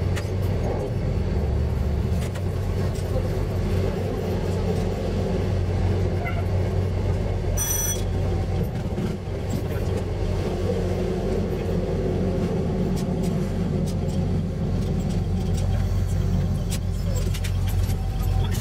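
KTR700-series diesel railcar running, its engine and running gear giving a steady, loud rumble, with a short high tone about eight seconds in.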